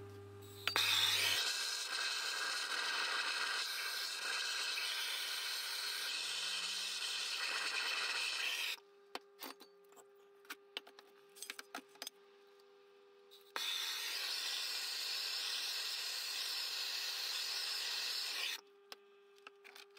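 Gas blowtorch burning with a steady loud hiss as it heats an engine cylinder head to loosen the old valve guides. The hiss runs for about eight seconds, stops for about five while the metal head is handled with small clicks and knocks, then runs again for about five seconds before stopping near the end.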